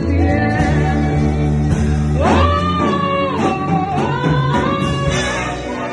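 Live gospel worship music: sustained band backing with bass and guitar or keys, and a singer's voice holding and sliding through long notes a couple of seconds in.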